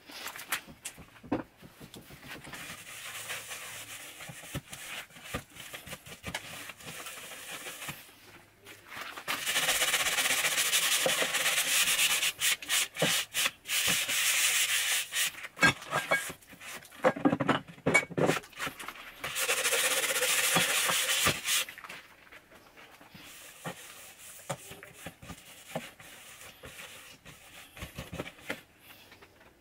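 A rubber-gloved hand scrubbing and wiping a dirty laminate pantry shelf: scratchy rubbing strokes, loudest in two long spells in the middle, with scattered knocks and clicks.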